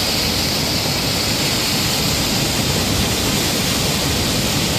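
Steady rushing of flowing water, an even hiss with no let-up.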